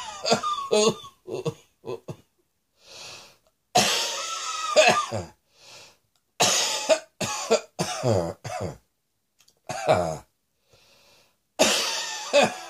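A person coughing in repeated bouts of several hard coughs each, with short silences between them.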